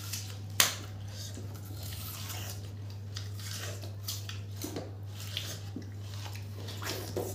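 Two people eating watermelon slices fast: wet biting, sucking and slurping of the juicy flesh off the rind, in many short smacks. There is one sharp click about half a second in, and a steady low hum runs underneath.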